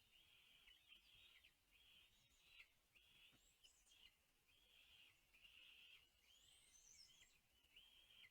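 Nestlings begging in the nest: a faint, steady series of short, raspy, hissing calls, a little under one a second, with a few thin higher chirps mixed in.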